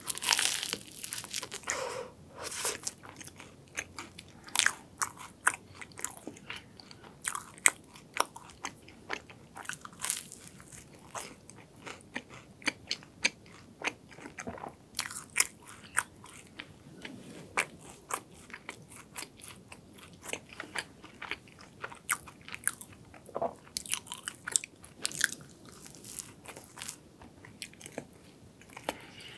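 Crisp croffle (croissant-dough waffle) being bitten and chewed close to the microphone: a loud crunchy bite at the very start, then steady chewing full of sharp crackles of the crust.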